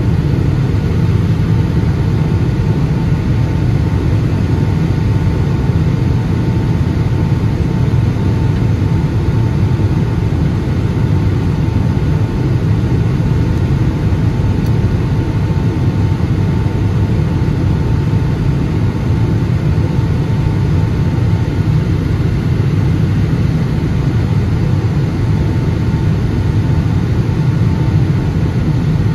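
Steady roar of a Boeing 757-200's engines and rushing air, heard from inside the cabin during the descent to land, with a faint steady whine above it.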